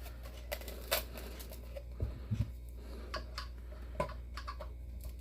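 Sparse small clicks and taps of hand work on a snow globe, with a couple of duller knocks about two seconds in, over a low steady hum.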